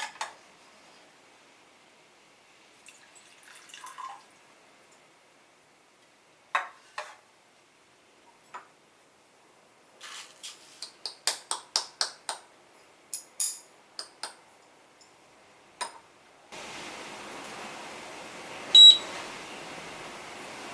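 Scattered light clicks and taps of things being handled, with a quick run of about a dozen clicks in the middle. A steady hiss then starts, and a single short electronic beep sounds, the loudest thing here.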